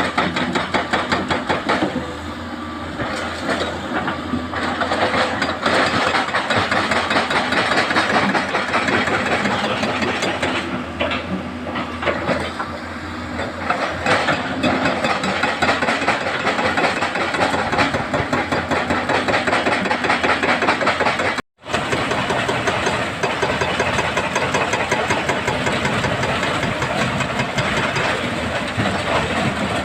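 Diesel engines of excavators and a dump truck running steadily, a dense mechanical rattle that cuts out for an instant about two-thirds of the way through.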